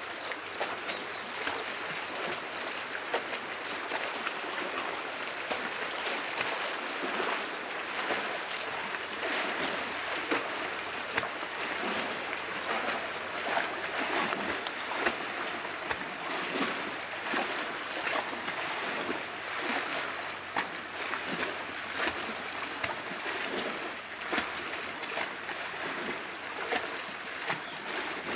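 Small waves lapping at the shore: a steady wash of water with many small splashes and trickles.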